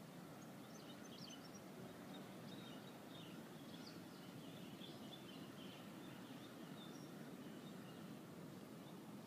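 Faint outdoor background noise, a low steady hiss, with scattered faint high chirps of distant birds.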